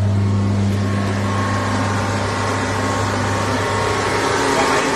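Aircraft air-conditioning system running during an R12 refrigerant charge: a steady low hum over a hiss, the hum fading out about four seconds in while the hiss continues.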